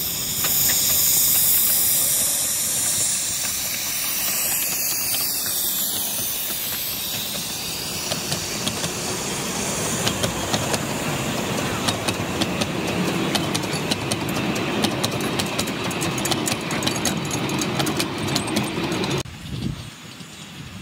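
A 10¼-inch gauge miniature steam locomotive passing close by with a strong hiss of steam, followed by its passenger coaches rolling past, wheels clicking rapidly over rail joints and points. The sound drops sharply near the end.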